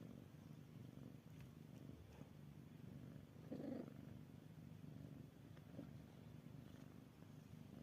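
Domestic cat purring softly and steadily, with one short louder sound about three and a half seconds in.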